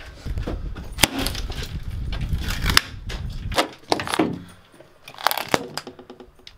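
Scattered knocks and clicks of cabinet panels and hinges being handled as the cabinets are taken apart, with a low rumble for the first three and a half seconds.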